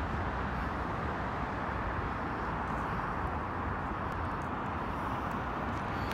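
Steady outdoor background noise, a low rumble and hiss with no distinct events.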